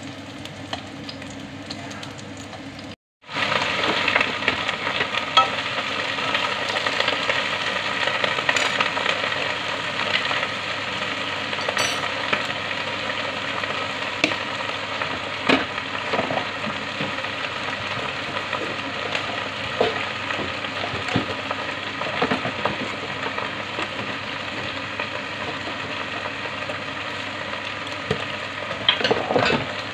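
Food frying in hot oil in a wok on a gas stove: a steady sizzle with occasional light clicks as it is stirred. It cuts out for a moment about three seconds in, then the sizzle comes back louder.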